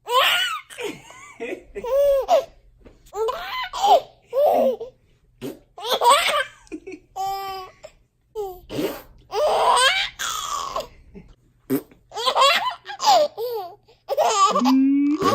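Baby laughing in repeated hearty bursts, one every second or so, with short breaths between them.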